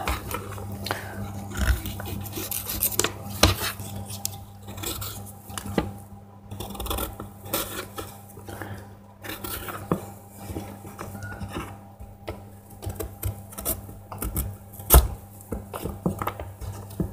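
Kitchen knife scraping and tapping on a plastic cutting board as a knobbly piece of fresh ginger root is peeled roughly, in irregular small scrapes and knocks, with one louder knock near the end.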